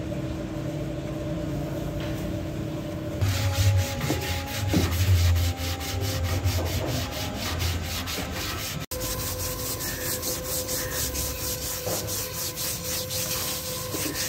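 Sandpaper rubbed by hand over carved wood in quick, even back-and-forth strokes, starting about three seconds in.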